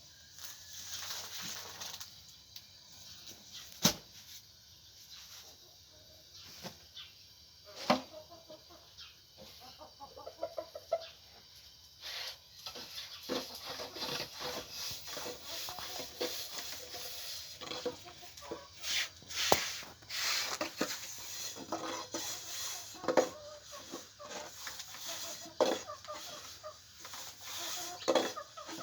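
Chickens clucking in short, scattered calls, busier in the second half, with a few sharp knocks in between.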